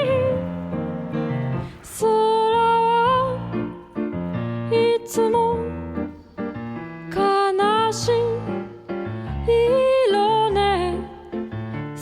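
Background music: a Japanese song, a woman singing over piano and keyboard, with sharp percussive hits about every three seconds.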